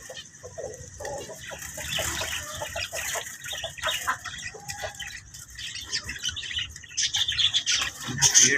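Small birds chirping with bursts of wing flapping as finches are shaken out of a cloth bag into a wire cage, the flutter and chirps getting louder near the end.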